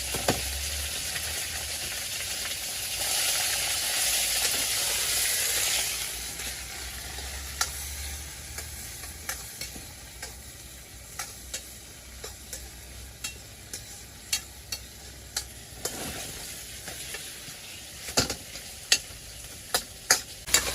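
Meat stir-frying in a pan: a steady sizzle that swells for a few seconds about three seconds in, then settles. The spatula scrapes and taps against the pan now and then, more often near the end.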